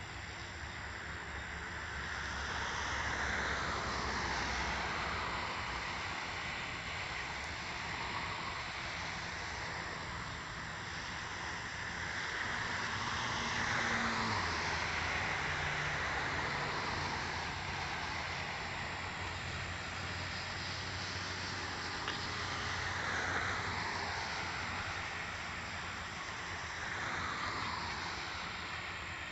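A train running along the tracks, heard from on board: a steady rush of wheel-on-rail and running noise that slowly swells and eases.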